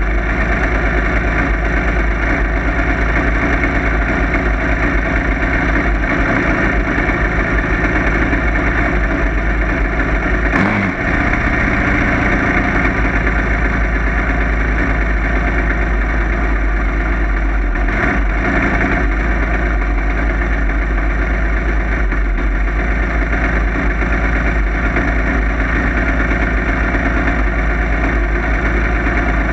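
Junior dragster's single-cylinder engine idling steadily, heard close up from the car, with a brief dip about a third of the way in.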